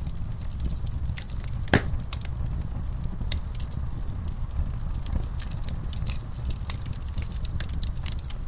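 Wood fire in a fireplace crackling and popping over a steady low rumble of the flames, with one loud pop about two seconds in.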